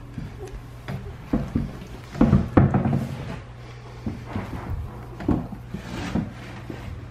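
Irregular knocks and bumps from a hand working in a wooden whelping box as a puppy is lifted out and set down on the rubber mat, loudest as a cluster about two seconds in, over a steady low hum.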